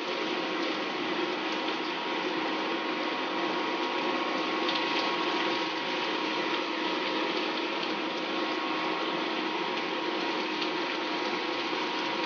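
Chicken, onion and garlic frying in soy sauce in a hot non-stick pan, a steady sizzle as mixed vegetables are slid in from a plate, with a faint steady hum underneath.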